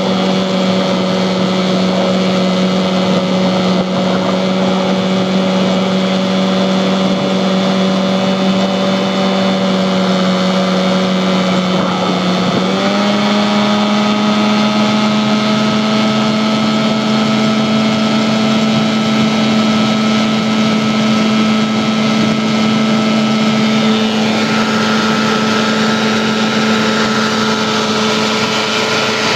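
A 15 hp Johnson two-stroke outboard, dry-stacked, ported and fitted with Boyesen reeds, running under way on a jon boat with a steady buzzing drone and a rush of water and wind. Its pitch steps up slightly about twelve seconds in and then holds.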